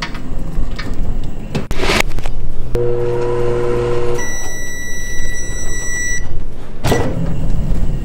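Sharp Insight Pro microwave drawer in use: knocks and a thud as it is loaded and shut, a steady electrical hum for about a second and a half, then a long steady high beep of about two seconds, and another sharp knock near the end as the drawer comes open.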